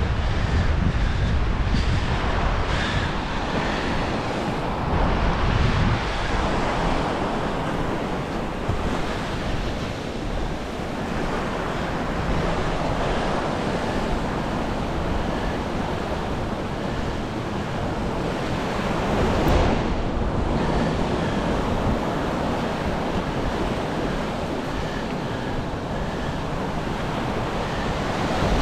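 Surf breaking and washing on the beach in a steady, rolling rush, with wind buffeting the microphone.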